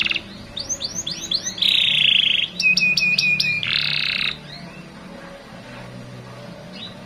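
Domestic canary singing a fast, varied phrase: a run of quick rising chirps, a buzzy trill, a string of about five sharp repeated notes, then another buzzy roll, stopping about four seconds in with only a few faint notes after.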